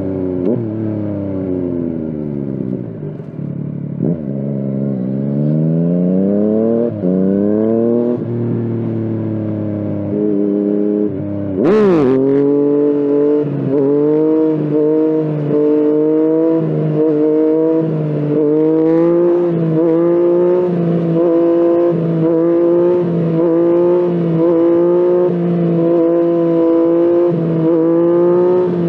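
Yamaha FZ-09/MT-09's inline three-cylinder engine under way: the revs fall away, then climb in several rising pulls with a drop at each gear change. A brief sharp burst of noise comes about twelve seconds in, after which the engine holds a steady note at cruising revs with small ups and downs of throttle.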